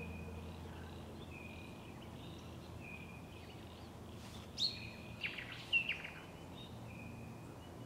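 Wild birds calling: a short high note repeated about once a second, and a louder cluster of sharp chirps a little past the middle, over low steady background noise.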